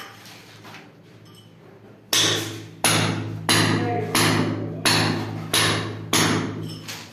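Hammer blows in a steady rhythm: a few light knocks, then about eight hard strikes roughly a second and a half apart, each ringing briefly, as a plumber works.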